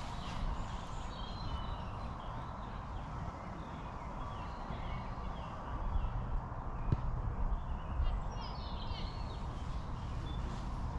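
Small songbirds chirping and twittering in short repeated calls, thickest near the end, over a steady low rumble.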